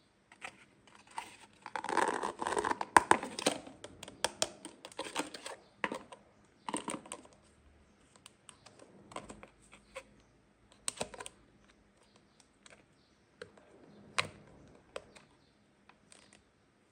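Hands unpacking a toy playset: plastic packaging crinkling and tearing in a busy run of crackles, then scattered light clicks and taps of small plastic pieces being handled.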